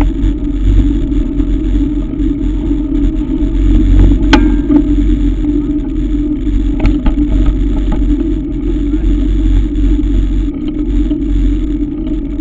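Steady wind rumble on the microphone of a camera riding on a mountain bike, mixed with tyre and drivetrain noise on a paved road. A sharp metallic click with a brief ring about four seconds in, and fainter clicks near seven seconds.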